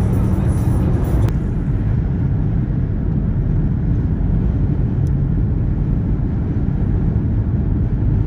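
Steady low rumble of a car on the move, road and engine noise as heard from inside the cabin.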